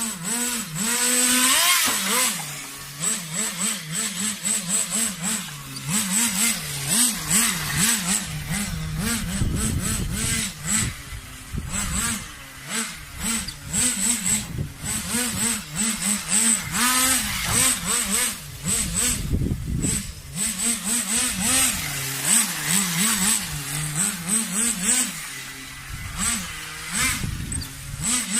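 Nitro RC car's small glow-fuel engine running and revving up and down repeatedly with the throttle, its pitch rising and falling every second or two.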